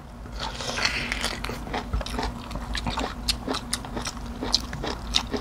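Close-up mouth sounds of people biting and chewing food, including a raw green vegetable, heard as a run of irregular sharp clicks and smacks. A faint steady hum runs underneath.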